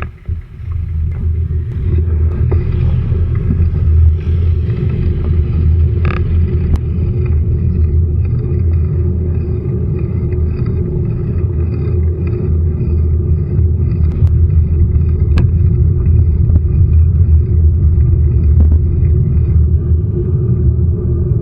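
A steady, loud low rumble with a constant hum above it, of the kind a running vehicle makes, with a few faint clicks.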